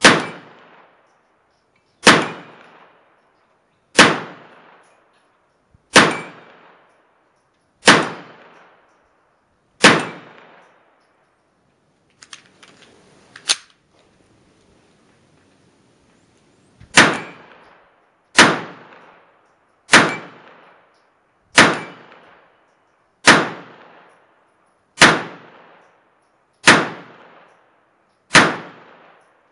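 1943 Mauser HSc .32 ACP pistol firing single shots, each with a short echo. Six shots come about two seconds apart, then a pause of about seven seconds with a few faint clicks, then eight more shots a little quicker.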